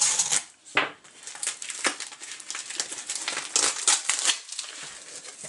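Cardboard mailer and its packing being handled and pulled open, with irregular crinkling, rustling and crackling.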